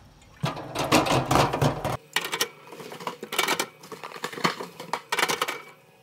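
Cardboard 12-pack of aluminium soda cans rustling and scraping as the cans are pulled out, then the cans clinking and knocking as they are set one after another into the portable fridge's wire basket.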